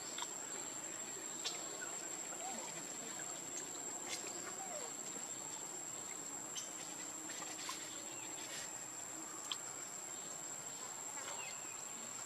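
Insects droning steadily at one high pitch, with a few faint scattered clicks over quiet outdoor background.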